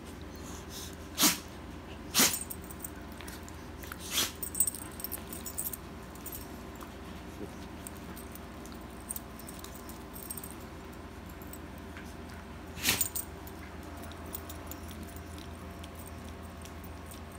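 Two dogs play-fighting: a handful of brief, sharp sounds a second or more apart stand out, with small clicks and the light jingle of a metal collar tag in between, over a steady low hum.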